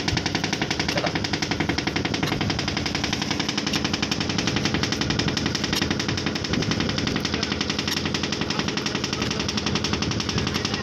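A fishing boat's engine running steadily, with a rapid, even knocking beat.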